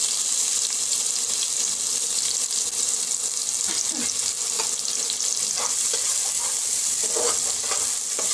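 Chopped onion and green chilli sizzling in hot oil with cumin seeds, a steady hiss. A few short scrapes come in the second half as a spatula stirs them.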